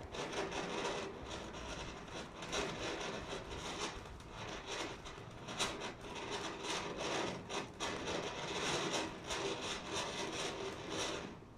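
Ground firework fountains hissing steadily as they spray sparks, with sharp crackles scattered through, until the sound cuts off suddenly near the end.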